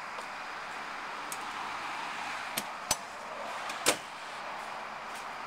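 Three short, sharp clicks or knocks over a steady outdoor hiss, the last and loudest about a second after the first two.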